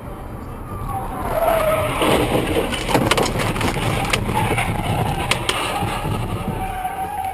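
Car tyres squealing in a skid on the road, with a wavering squeal that comes and goes. In the middle are several sharp knocks.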